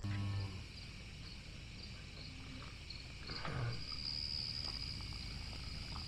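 Insects trilling steadily in one high thin tone, stronger in the second half, with a brief low call-like sound about three and a half seconds in.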